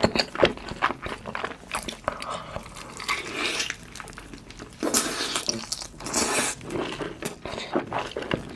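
Close-miked eating: a person chewing and biting into crispy fried food, with wet clicks and smacks throughout and two longer, louder crunches about five and six seconds in.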